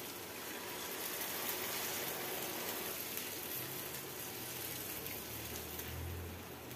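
Half a cup of water poured into a hot pan of paneer in spiced masala, a steady rush and hiss of water on the frying gravy, then stirred in with a silicone spatula.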